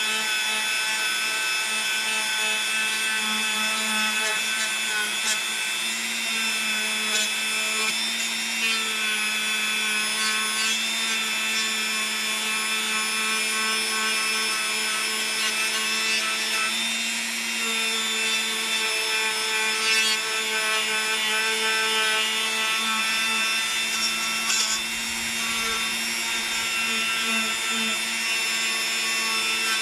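Dremel rotary tool running steadily at high speed, its small bit scrubbing grime off an aluminium compressor valve plate. A constant whine that shifts slightly in pitch now and then, with a scratchy rubbing where the bit works the metal.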